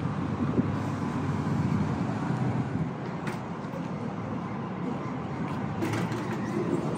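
Steady outdoor hum of road traffic, with a couple of short faint clicks about three and six seconds in.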